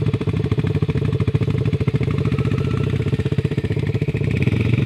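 Quad ATV engine running with a rapid, even pulse, its pitch starting to rise near the end as it picks up speed.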